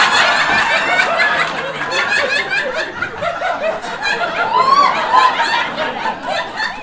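Comedy club audience laughing loudly, many voices at once, easing off near the end.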